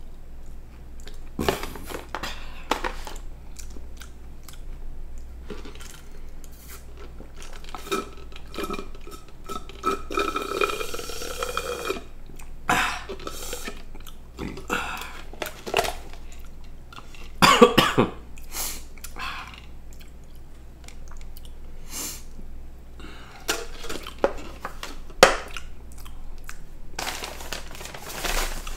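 Close-miked eating sounds: chewing with scattered clicks and clinks of cutlery and dishes. There is a drawn-out pitched sound about ten seconds in, and the loudest knocks come a little past halfway.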